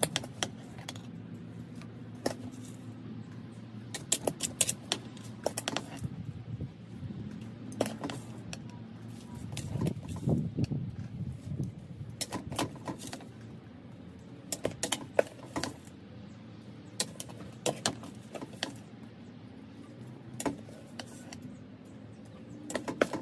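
Chunky potting mix with orchid bark being scooped by hand from a plastic bag into a ceramic pot: rustling and crinkling with clusters of small clicks and rattles as the bark pieces fall, in bursts every few seconds.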